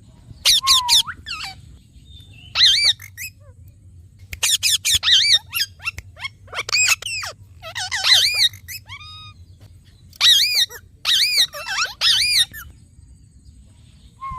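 Parrot chirping: short, high-pitched, arching chirps in quick clusters of a few notes, broken by pauses of a second or so.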